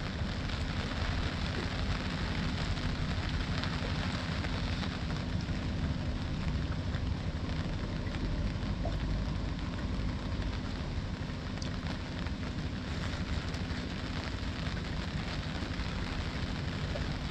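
Heavy rain falling steadily, pattering on the umbrella overhead and on the river and boat, an even hiss with a low rumble under it.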